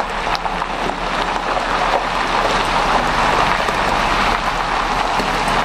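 Heavy-haulage low-loader rolling slowly over gravel: a steady hiss of many tyres on loose stones with a low engine hum underneath.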